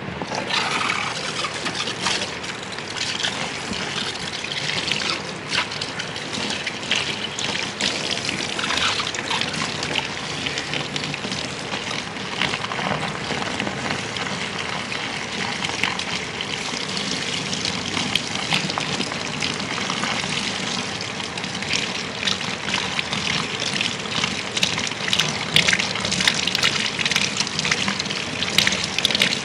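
Water from a handheld shower sprayer comes on abruptly and runs steadily, spraying through lathered hair and splashing into a shampoo basin as the shampoo is rinsed out.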